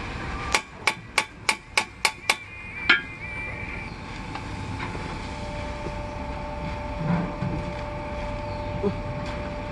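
Hammer striking the steel bar and socket on the pinion nut of a Tata truck differential to tighten it: seven quick metal strikes, about three a second, then one louder strike that rings briefly.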